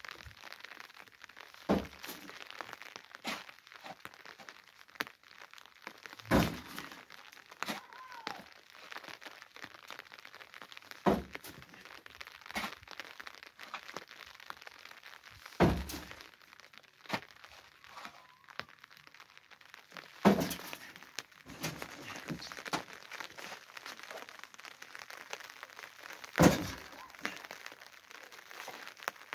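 A series of heavy, sharp knocks or cracks, about every four to six seconds, with lighter clicks and crackles in between.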